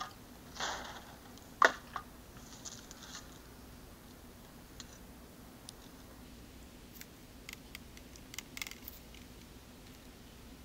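Plastic buckets and a metal mesh sieve being handled while sifting wood ash: a few knocks in the first two seconds, the sharpest about a second and a half in, then scattered light clicks and taps.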